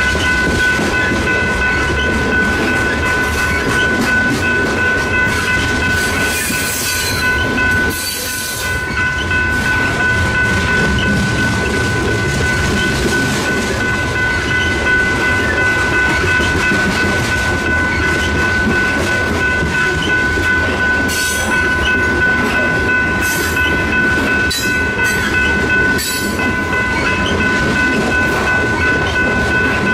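Loaded coal hopper cars of a long freight train rolling past close by, wheels clattering over the rail joints in a steady rumble. A steady high whine sits over it, and short high screeches come twice about seven seconds in and several more times in the second half.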